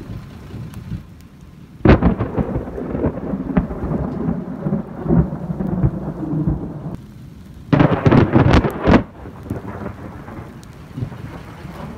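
Thunder: a sudden crack about two seconds in that rolls into several seconds of rumbling, then a second loud clap about eight seconds in lasting about a second.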